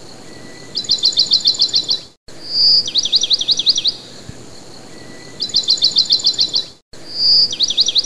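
A songbird singing the same high whistled phrase twice: a fast run of short even notes, then a held whistle followed by a string of quick down-slurred notes. Each pass is cut by a brief complete drop-out, as in a looped recording.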